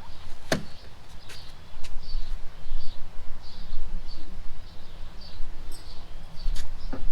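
A bird chirping over and over, a short high chirp roughly every two-thirds of a second, with a few sharp clicks and knocks, the loudest a little after half a second in.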